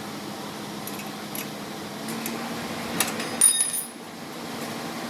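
Metal tools clinking in a workshop, with one sharp click and then a loud, short ringing clink about three and a half seconds in, over a steady low hum.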